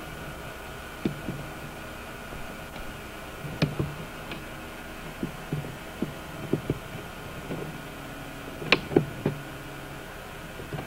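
Scattered knocks and clicks over a steady background hum, with the loudest pair close together about nine seconds in.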